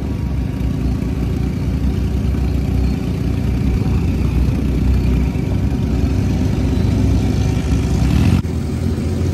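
Dune buggy engine running with a strong low rumble while the buggy is being driven. The sound changes abruptly near the end.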